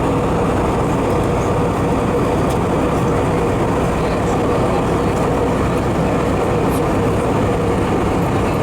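Steady cabin noise inside an Airbus A320 in flight: engine and airflow noise at an even level, with a faint constant whine underneath.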